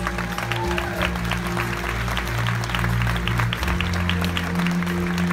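Audience applauding over the show's backing music, which holds steady low chords that change about three and a half seconds in.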